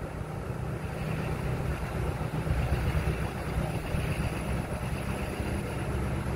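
Diesel truck engine running steadily as the truck rolls slowly, heard from inside the cab.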